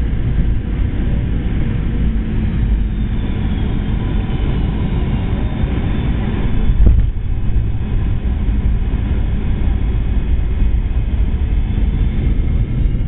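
Cabin noise of a Boeing 717 landing: a steady low rumble of its rear-mounted Rolls-Royce BR715 engines and airflow, with a single thump about seven seconds in.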